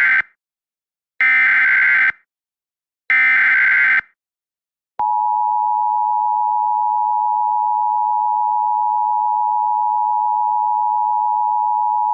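Emergency Alert System SAME header data bursts: the last moment of one burst, then two more, each about a second long, separated by short gaps. About five seconds in, the EAS attention signal starts, a steady two-tone beep that heralds the alert message.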